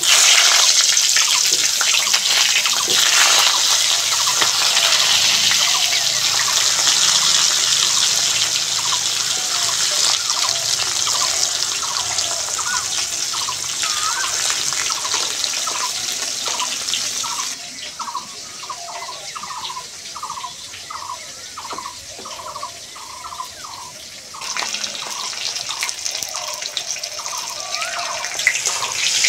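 Pieces of pointed gourd (potol) frying in hot mustard oil in a pan: a steady sizzling hiss that dies down for several seconds past the middle and picks up again near the end.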